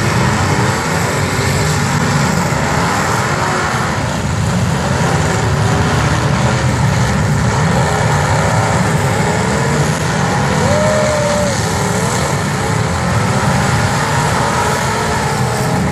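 Engines of several demolition derby cars running and revving together in a steady, loud din.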